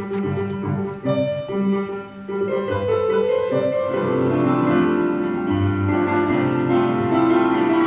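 Music led by piano, with notes held and changing in steps; it grows fuller and louder about two and a half seconds in.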